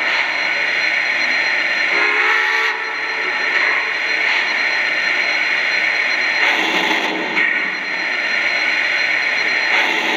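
Lionel Vision GS-4 O gauge model steam locomotive's onboard sound system playing standing steam effects after start-up: a steady hiss with a short pitched sound about two seconds in, and louder bursts of hiss about six and a half seconds in and again near the end.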